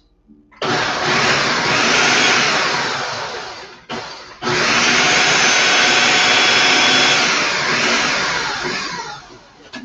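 Food processor motor chopping zucchini, red pepper and onion in two pulses, the first about three seconds long and the second about five. Each starts abruptly and winds down as the blade slows, a sound that is like revving up a motorcycle.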